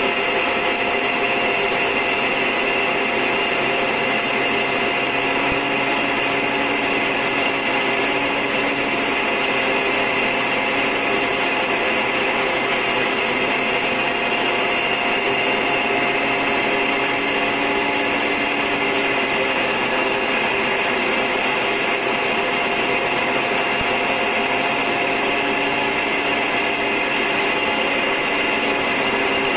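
Short Tucano's Garrett TPE331 turboprop engine and propeller running steadily in flight: a constant drone with several steady whining tones.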